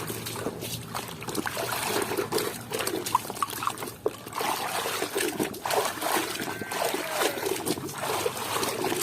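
Water splashing and trickling as hands scrub and rinse a muddy toy in clean water, with small knocks of the toy against the container.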